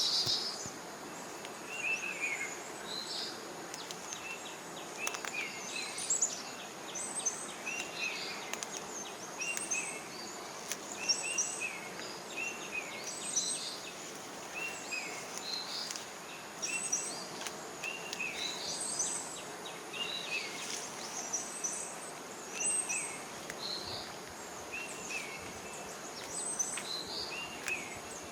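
Birds calling outdoors: a short chirped note repeated about every second and a half, with higher chirps from other birds scattered over it. A faint steady high whine and a soft hiss run underneath.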